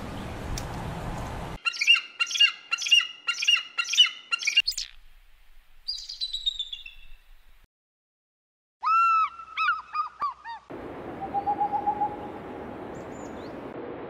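Bald eagles calling: runs of high, piping chirps in separate bursts with pauses between them, followed by a steady outdoor hiss.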